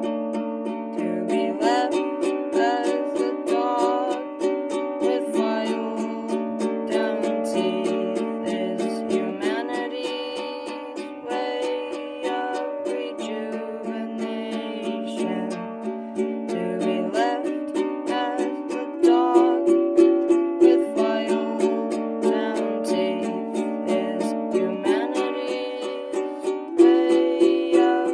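An acoustic string instrument strummed in chords, an instrumental passage with no singing. The strumming grows louder about two thirds of the way through.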